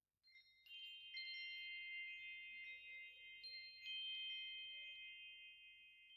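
Faint chimes ringing: several high, clear tones struck one after another and left to ring together, dying away near the end.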